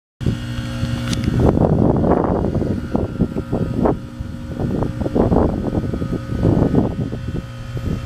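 Outdoor unit of a 1996 American Standard heat pump running through a defrost cycle: a steady compressor hum under irregular, swelling rushing noise, with a sharp click about a second in.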